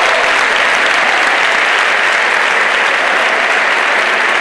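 Crowd applauding steadily as a boxing round ends.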